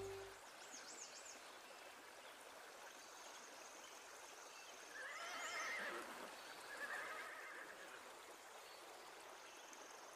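A horse whinnies about halfway through, with a second, shorter whinny a second or so later, over the faint steady rush of a river.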